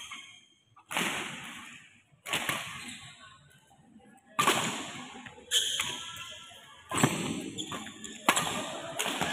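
Badminton rally: rackets striking a shuttlecock about six times, roughly every second and a half, each hit sharp with an echo trailing after it.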